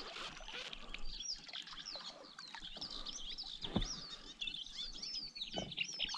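Small birds twittering, with many quick, high, overlapping chirps, and two light knocks, one near the middle and one toward the end.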